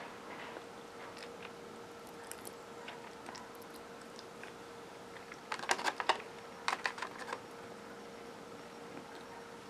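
Close-up chewing of a crunchy Chips Ahoy! cookie: faint crisp bites and chews, then two louder clusters of crunches a little past the middle. A faint steady hum lies underneath.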